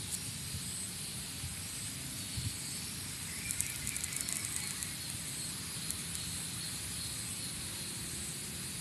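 Steady outdoor background of a low rumble and hiss with a few faint high steady tones, broken by a short run of faint high clicks about three and a half seconds in.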